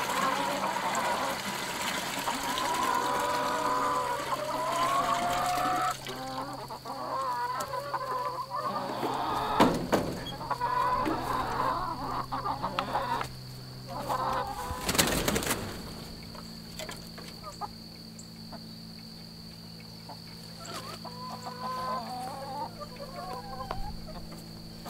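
Chickens clucking and calling, with water pouring from a plastic jug into a bucket during the first six seconds or so. There are two sharp knocks, about ten seconds in and again about fifteen seconds in, then quieter clucking near the end.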